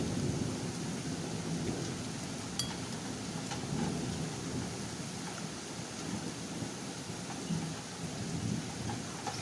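Steady rain drumming, with a low, uneven rumble underneath and a few faint sharp ticks.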